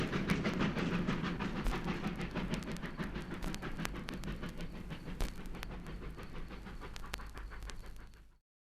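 Train running on the rails with sharp clicks from the wheels and a low rumble, growing steadily fainter and then cutting off suddenly near the end.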